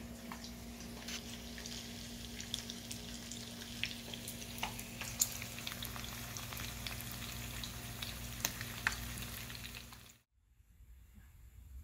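Bacon and eggs frying in a pan, sizzling with frequent sharp crackling pops. The sound cuts off suddenly near the end.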